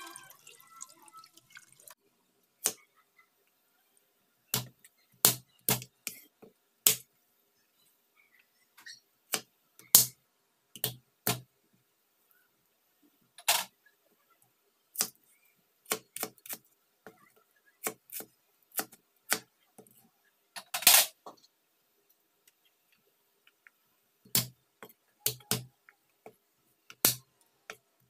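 A cleaver chopping garlic cloves on a wooden cutting board: single sharp knocks at uneven intervals, some in quick pairs. Faint running or dripping water from rinsing fish is heard in the first two seconds.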